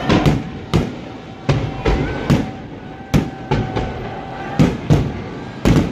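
Aerial fireworks bursting: about a dozen sharp bangs at irregular intervals, some close together.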